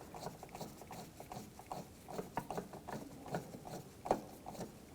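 Faint, irregular clicking and ticking of a T20 Torx driver turning the door handle's retaining screw inside the door, with one louder click about four seconds in.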